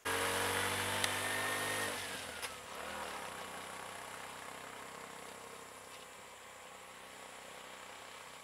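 A small vehicle engine idles steadily, then stops about two seconds in with a falling tone. A fainter steady hum is left, which slowly fades.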